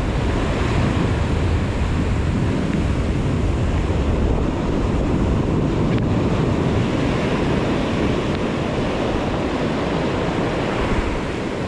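Waves breaking on the shore in a heavy storm swell, with wind rumbling on the microphone, steady throughout.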